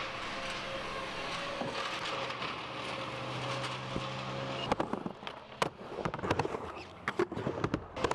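Skateboard on a metal-sheeted mini ramp: a steady hum for the first half, then, from about halfway, a run of sharp irregular clacks and knocks from the wheels and board on the metal surface and coping.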